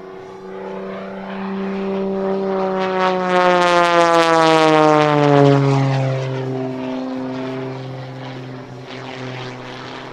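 Extra 330SC aerobatic plane's propeller and six-cylinder Lycoming engine passing by: the drone grows louder to a peak about four to five seconds in, its pitch falling as it goes past, then fades away.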